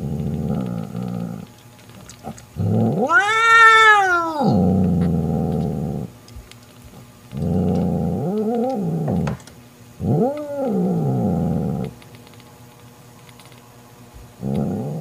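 Mother cat growling in spells of one to a few seconds, breaking into a loud yowl that rises and falls about three seconds in, with shorter growl-yowls around eight and ten seconds in and again at the end. It is a mother cat's threat display, warning another cat away from her kitten.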